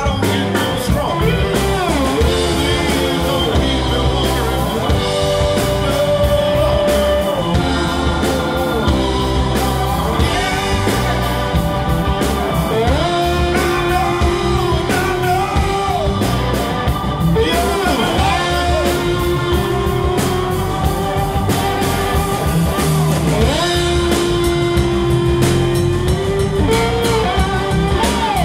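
Live blues-rock band playing: electric guitar and slide guitar with gliding notes, bass, drums and organ, with a man singing.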